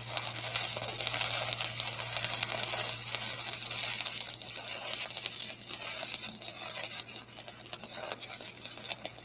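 Stick-welding arc crackling steadily as a bead is run on steel pipe, over a steady low hum. The crackle grows a little quieter in the second half.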